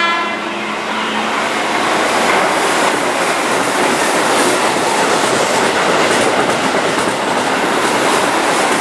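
Keihan 8000-series electric limited express train running past close by: a steady, loud rush of wheel and rail noise, with faint clicks of the wheels over the rail joints.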